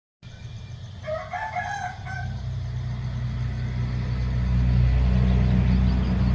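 A rooster crows once, about a second in, over a low steady rumble that grows louder and becomes the dominant sound.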